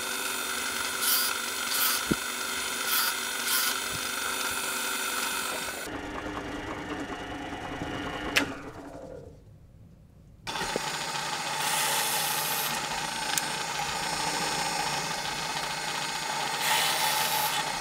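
Axminster bench pillar drill running with a steady motor hum, its bit cutting into wood in short bursts. About eight seconds in it is switched off with a click and winds down with a falling tone. About two seconds later it starts again and runs, boring into the wood near the end.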